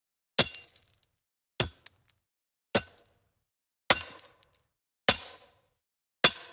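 Chopping blows: six sharp strikes evenly spaced a little over a second apart, each with a short ringing tail.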